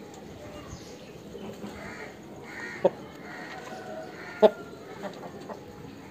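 Aseel rooster pecking at grain on hard dirt: two sharp taps, about three and four and a half seconds in, over faint soft bird calls.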